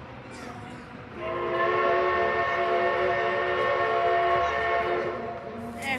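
Steam locomotive whistle blown in one long blast of about four seconds, sounding several notes at once as a steady chord, starting about a second in.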